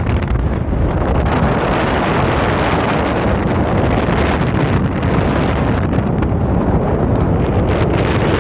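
Wind buffeting the microphone: a loud, steady rush of noise, heaviest in the low end.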